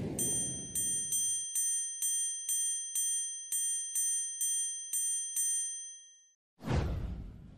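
A bright, bell-like chime sound effect strikes about a dozen times at an even pace of roughly two a second, each ping ringing briefly and fading. Near the end a loud whoosh sweeps in and dies away.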